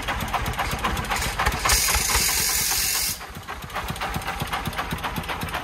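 Công nông three-wheeled dump truck's 40-horsepower diesel engine idling with a rapid, even chug. About two seconds in, a loud hiss of air lasts roughly a second and a half.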